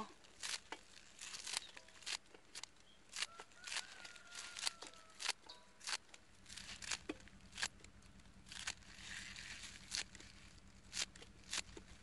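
Grass and weeds being pulled and torn by hand: irregular sharp snaps and rips, about two a second.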